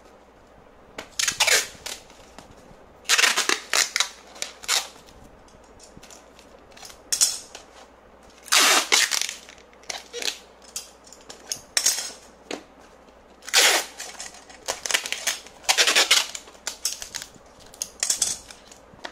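Clear packing tape pulled off its roll in about a dozen short, loud, rasping rips as strips are wrapped onto a cardboard box.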